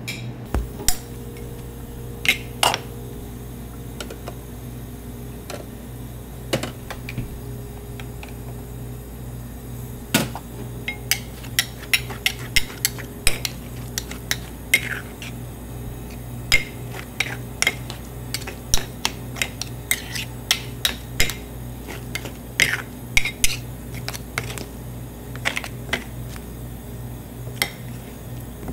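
Metal spades clinking, tapping and scraping on a cold stone slab as ice cream is mixed and folded by hand: scattered strikes at first, coming thick and fast from about ten seconds in, over a steady low hum.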